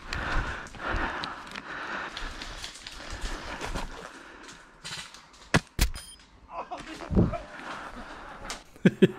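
Footsteps and rustling of someone moving on foot through undergrowth, a steady scuffing haze with many small clicks for the first few seconds, then a few sharp cracks in the middle.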